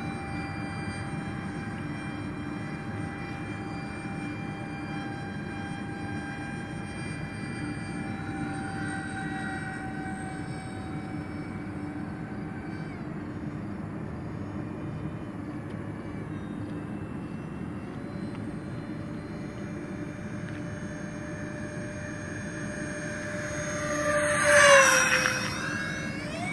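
Electric ducted fans of a radio-controlled Airbus A330-600 model airliner whining steadily while it flies at a distance. Near the end it makes a close, low pass: the whine swells loudly, then drops in pitch as the model goes by.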